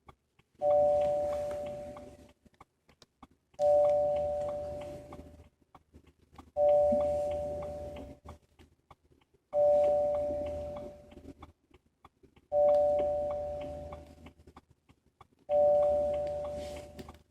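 A car's warning chime in a BMW 320i sounding again and again, about every three seconds: six chimes, each a single two-tone gong that strikes sharply and dies away over about a second and a half.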